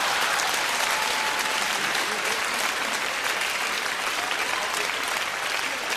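Large theatre audience applauding steadily, the clapping easing off slightly toward the end.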